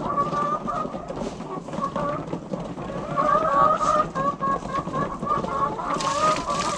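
A flock of BV-380 laying hens clucking and calling, with many short wavering calls overlapping. Near the end a steady hiss of running water starts.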